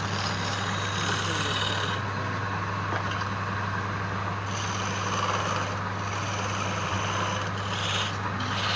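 Wood lathe running with a steady motor hum while a turning tool scrapes against the spinning wood; the scraping gets louder near the end.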